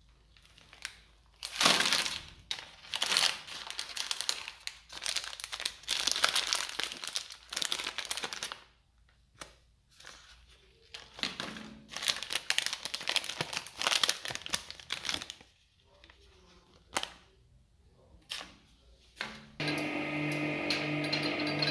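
Plastic soap wrappers being crinkled and torn open by hand, in irregular bursts with short pauses between. Near the end, a twin-shaft industrial shredder's motor starts and runs with a steady hum.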